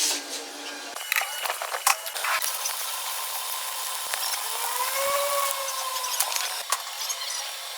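Metal-machining tool noise: a steady hiss with scattered clicks and rattles, and a brief rising-then-falling whine about five seconds in.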